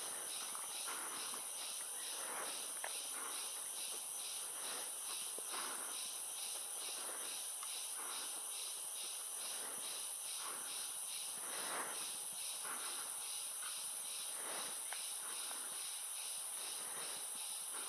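Tropical forest insects: a steady, high-pitched insect drone with a second insect call pulsing a few times a second beneath it, and soft scattered rustles now and then.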